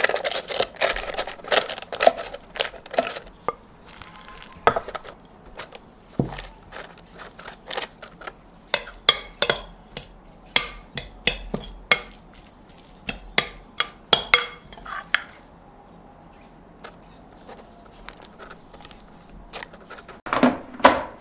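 Utensils scraping and knocking against a glass mixing bowl and an air fryer basket as kimchi fried rice is scooped and spread: clusters of sharp clicks and taps, with a busy burst at the start, more from about eight to fifteen seconds in, and a last burst near the end.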